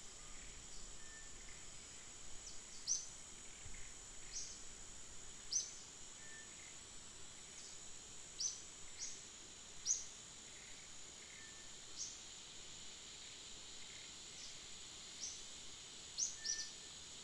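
Outdoor ambience: a steady high-pitched insect drone, with short high chirps that fall in pitch, about ten of them at irregular intervals, most likely from a bird.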